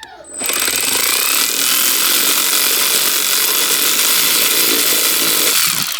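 A tool running steadily with a loud rushing noise that cuts in just after the start and stops sharply about five and a half seconds later.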